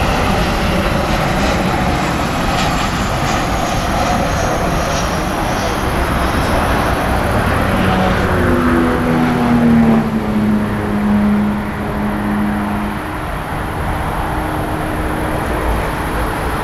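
Boeing 737-800 jet engines rumbling and humming as the airliner passes low on final approach and flares over the runway. A steady hum comes in about halfway through and sinks a little in pitch as the aircraft goes by.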